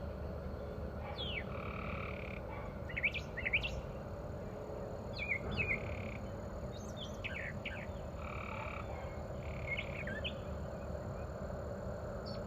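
Short, high chirping animal calls come in small clusters every couple of seconds, with a few brief flat whistled notes, over a steady low rumble of outdoor background noise.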